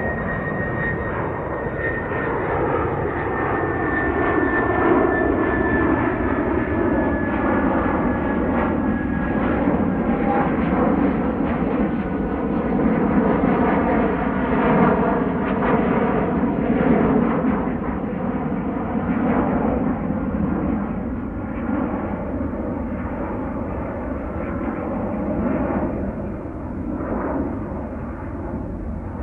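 Jet airliner passing high overhead: a steady engine rumble with slowly shifting bands in its tone, and a thin high whine that slowly falls in pitch over the first ten seconds or so.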